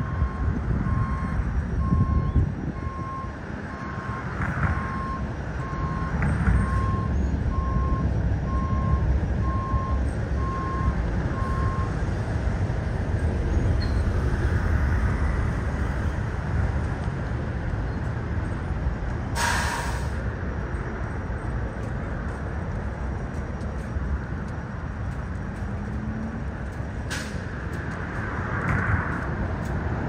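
Street traffic rumble with a vehicle's reversing beeper sounding a steady series of beeps at one pitch, a little more than one a second, which stops about twelve seconds in. Two short hissing bursts come later, the second near the end.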